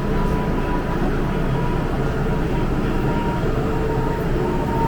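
Steady rumble and hum of an MTR M-Train standing at the platform with its doors open, with faint steady tones running through it.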